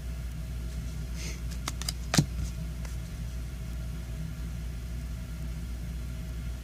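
Trading cards being handled: a few light clicks and one sharper snap about two seconds in, over a steady low background hum.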